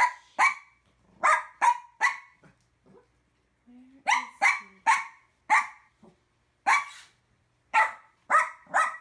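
A small white fluffy dog barking sharply and repeatedly, in quick runs of two to four loud barks with a short pause a few seconds in.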